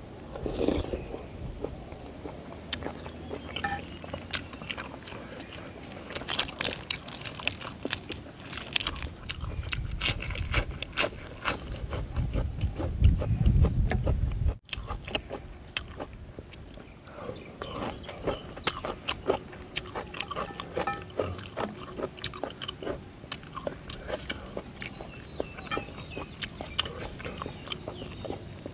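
A person eating instant noodle soup close to the microphone: wet chewing and slurping of noodles and broth, with many small irregular mouth clicks.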